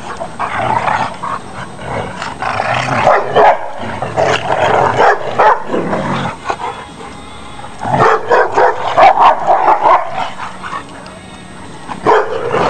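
Three dogs play-fighting, growling and barking in rough bursts, with a lull about ten seconds in.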